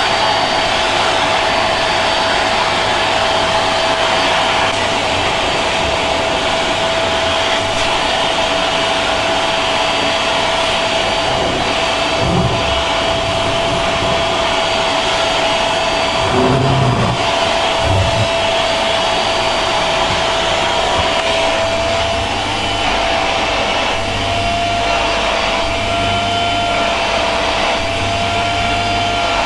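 Vacuum cleaner motor running steadily, a constant whine over a loud rushing noise, with a few low bumps partway through.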